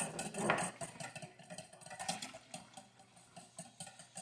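A utensil stirring milk and melted butter in a mixing bowl, with quick, irregular clinks and scrapes against the bowl.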